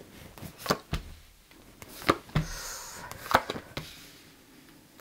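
Tarot cards being handled and laid down on the table: a few separate light taps, with a short papery rustle of a card sliding about halfway through.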